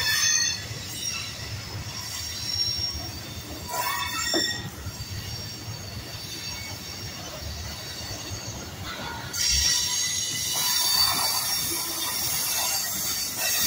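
Freight train cars rolling past close by, wheels rumbling on the rails. A high metallic wheel squeal sounds briefly at the start and again about four seconds in, then turns loud and continuous from about nine and a half seconds on.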